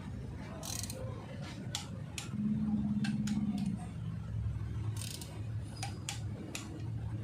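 Scattered metallic clicks of a ratchet torque wrench as cylinder head bolts are run down, over a steady low hum. A louder low hum rises for about a second partway through.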